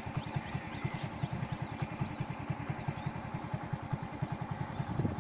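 An engine running with an even, fast low throb of about ten beats a second. Faint bird chirps come over it in the first few seconds.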